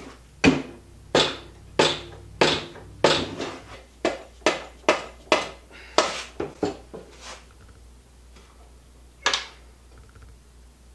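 Hammer striking the aluminium case of a Subaru STI boxer engine block to knock the two case halves apart: about a dozen sharp knocks a little over half a second apart, then one more knock a few seconds later.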